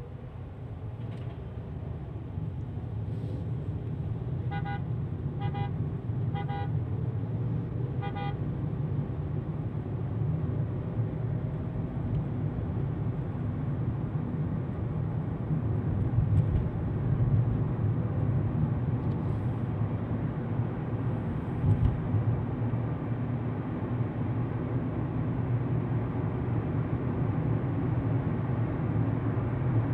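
Steady road and engine rumble inside a moving car's cabin, growing louder over the first few seconds as the car picks up speed. A car horn beeps four short times between about four and eight seconds in.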